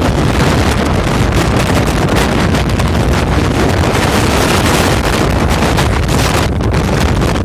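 Blizzard wind of about 27 m/s buffeting the microphone: a loud, steady rush of noise with no letup.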